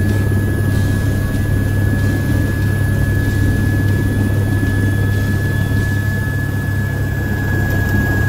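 Helicopter turbine engine and rotor running on the ground, heard from inside the cockpit: a steady heavy drone under a high turbine whine that drops slightly in pitch near the end.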